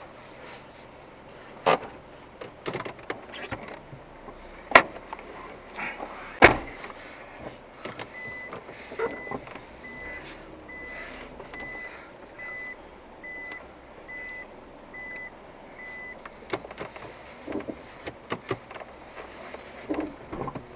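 Sharp knocks and thumps, the loudest three about two, five and six and a half seconds in, then a car's interior warning chime beeping on one even pitch about one and a half times a second for some eight seconds, the kind that sounds while a door stands open. More light knocks follow near the end.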